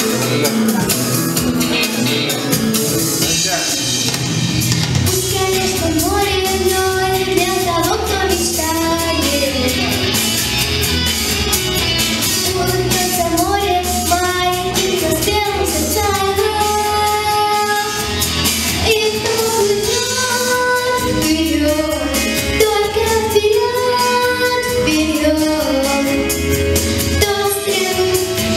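A young girl singing a song into a handheld microphone over instrumental accompaniment with a steady beat.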